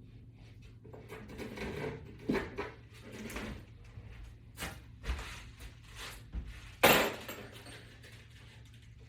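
Knocks and clatter of a wall-mount board and its screws being handled and fitted, with one sharp knock about seven seconds in.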